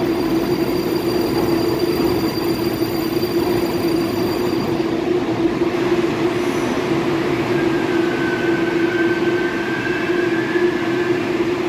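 Metro train pulling in along the platform and braking to a stop. A steady electric hum runs throughout, a high thin whine cuts off about five seconds in, and a faint squeal rises and falls near the end as the train halts.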